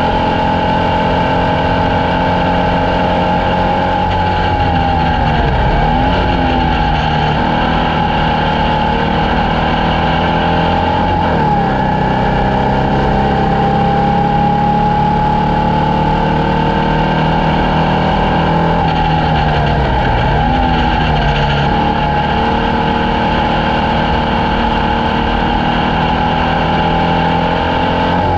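Formula Vee race car's air-cooled Volkswagen flat-four engine running hard under load. Its pitch dips sharply and climbs back up about four times.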